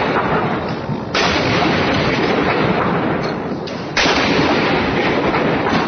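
Gun salute: two loud shots about three seconds apart, each followed by a long fading rumble.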